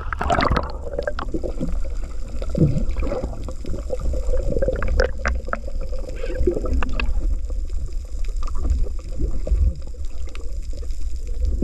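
Muffled underwater sound from a camera in a waterproof housing: a steady low rumble of moving water with gurgling, scattered small clicks and knocks, and a brief rush of noise at the start.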